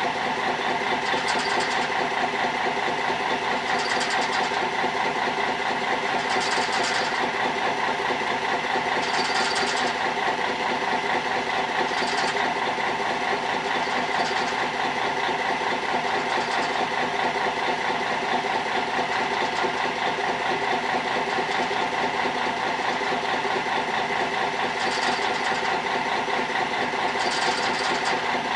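A fishing boat's engine running steadily at low revs, with a short hiss recurring every two to three seconds.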